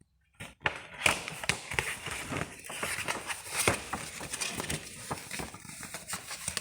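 Doll packaging being opened by hand: cardboard and plastic rustling and crackling, with many small clicks and taps, starting about a second in.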